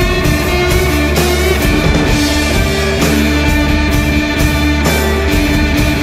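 Rock music with electric guitar, bass and drums, playing steadily at full level.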